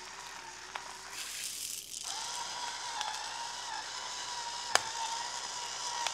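Battery-powered electric salt and pepper grinder running, a steady small-motor whine with a grinding rattle. The whine breaks off briefly about two seconds in, then runs on, and there is one sharp click about five seconds in.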